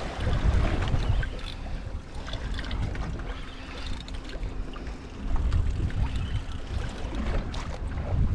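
Wind buffeting the microphone in gusts, over water lapping against a small boat, with scattered light knocks and a faint steady hum through the middle.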